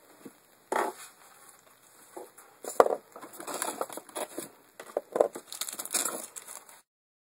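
Handling noise as a small battery and a coiled power cord are moved about in a styrofoam packaging tray: irregular crackles, rustles and light knocks. The sound cuts off suddenly near the end.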